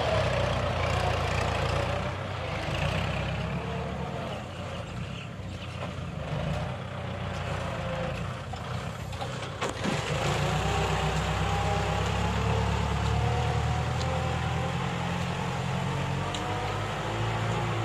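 Kubota L5018 SP tractor's four-cylinder direct-injection diesel engine running steadily under load while pulling a six-disc plough through the soil. The engine drone dips a little in the middle and comes back up after about ten seconds.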